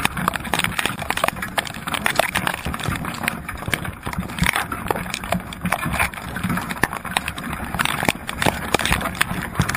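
Dense, irregular clicking and knocking of Dungeness crabs' shells and legs against the wire crab trap and the camera's waterproof housing, heard underwater through the housing.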